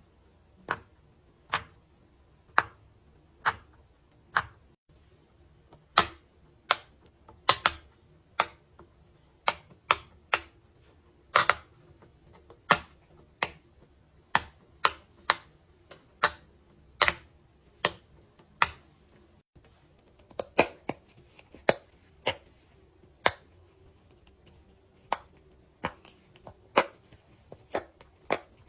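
Silicone pop-it fidget toy bubbles being pressed one at a time, each giving a sharp pop, about one or two a second, some in quick pairs.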